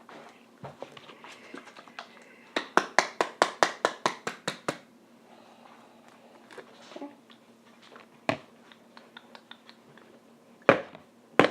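A quick run of about a dozen sharp taps, roughly six a second for two seconds, then a few single knocks: hard objects rapped against one another.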